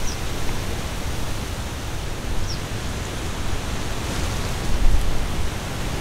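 Steady outdoor noise: an even hiss with a fluttering low rumble underneath, and no distinct events.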